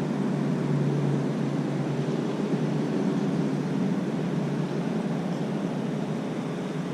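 Steady low rumble of distant engine noise with a constant low hum, easing off slightly toward the end.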